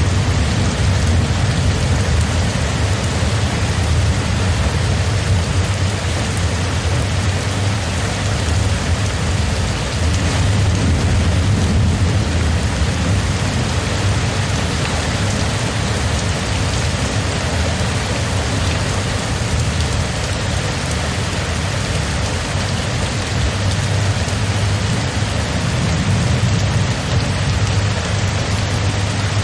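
Steady rain, with a low rumble running underneath and no separate thunderclaps.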